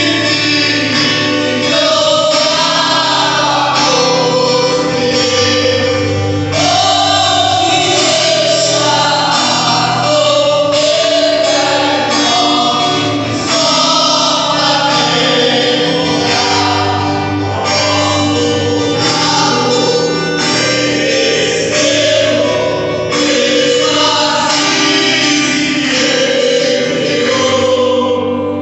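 Christian gospel worship music: voices singing a melody together over a steady accompaniment.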